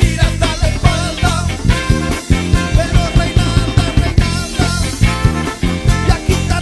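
Live ska band playing an instrumental passage of an up-tempo song, with a steady, even beat.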